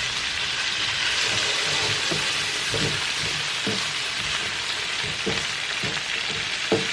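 Diced potatoes with onion and peppers sizzling steadily in hot oil in a skillet, with short knocks of a utensil stirring them against the pan.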